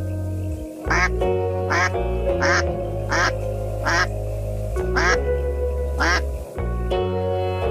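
Mallard duck quacking, seven short quacks a little under a second apart, over steady background music.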